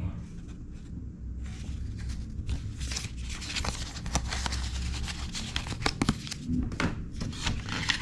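Paper instruction manual and warranty card being unfolded, folded and shuffled by hand: a run of crisp paper rustles and crackles, quieter at first and busier from about a second and a half in.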